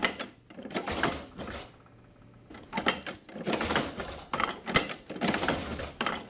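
Flexco XP manual staple applicator being worked by its lever handle: metallic clicking and clacking as it sets staple fasteners in a conveyor belt and ratchets forward to the next plate. A short lull about two seconds in, then a denser run of clacks.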